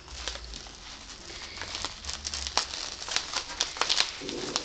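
Plastic bag and bubble wrap crinkling and crackling as they are handled and opened by hand, with many sharp, irregular crackles.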